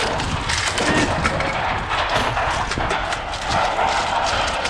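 Scrap metal clanking and clattering: a quick run of sharp knocks and impacts over a steady noisy background.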